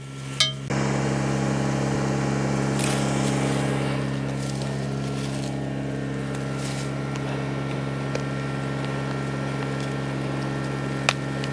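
John Deere 755 compact tractor's diesel engine running steadily at constant speed, coming in abruptly about a second in. A sharp click near the end.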